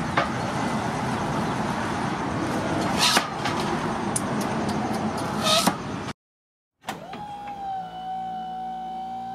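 Hinged lever-blade sugarcane cutter chopping a peeled sugarcane stalk against a wooden board: a light chop at the start, then two sharp chops about three and five and a half seconds in, over a steady background din. The sound cuts out briefly after about six seconds, then an intro tune with a long held tone begins.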